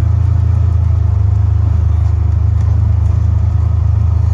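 Vehicle engine running steadily, a loud, even low drone with a fine regular pulse.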